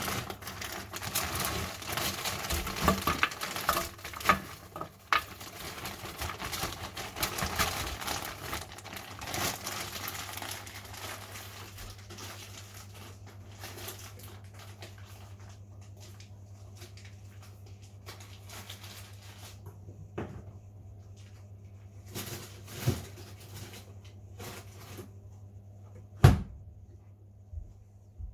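Kitchen handling noises: several seconds of busy rustling and clattering, then a steady low hum broken by a few separate knocks, the loudest near the end.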